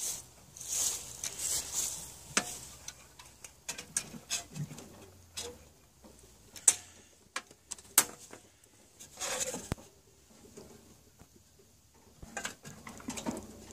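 Clamp-on heat lamp with a metal reflector being handled and clamped onto a wooden nesting box: scattered sharp clicks and knocks, with a few short bursts of rustling and scraping.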